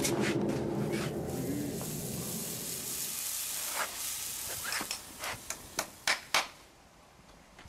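A hot horseshoe sizzling and hissing as it is pressed against a horse's hoof during hot shoeing, fading over the first few seconds. It is followed by a quick series of sharp knocks.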